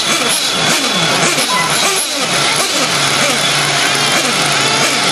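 Several Traxxas Slash RC short-course trucks racing, their electric motors whining up and down in pitch over and over as they accelerate and brake around the track, several overlapping at once.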